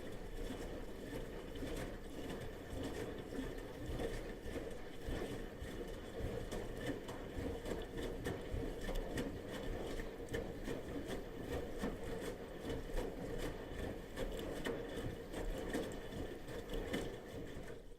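Bosch washing machine in its wash cycle: the drum turns, tumbling wet laundry and sloshing water, with a steady churning and many small irregular knocks.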